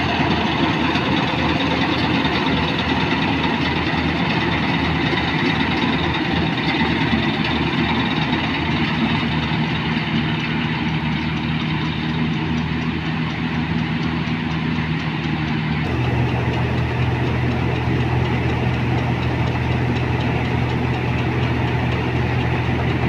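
Kartar 4000 combine harvester's diesel engine running steadily as it harvests paddy. About 16 s in the sound changes abruptly to a closer, stronger low hum as the combine unloads grain through its auger into a trolley.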